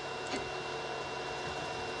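Biqu BX 3D printer running mid-print: a steady whine of the stepper motors over the rush of its cooling fans, with a faint click about a third of a second in.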